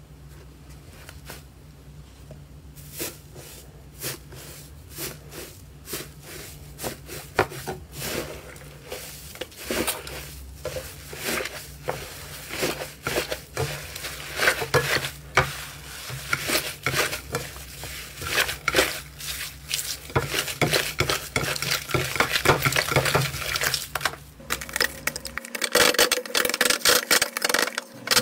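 Crumbly 'tofu dreg' slime being pressed and kneaded by hand on a ceramic plate: a dense run of small crackles and squishes that gets busier about halfway through.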